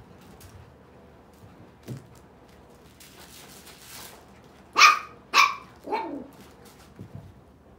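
Miniature poodle puppy barking in play: two sharp, high yaps about half a second apart, then a lower yap that drops in pitch.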